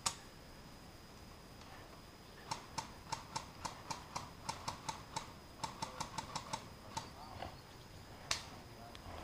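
Airsoft guns firing: a sharp click, then a quick string of short cracking clicks at about four a second for some four seconds, and one more click near the end.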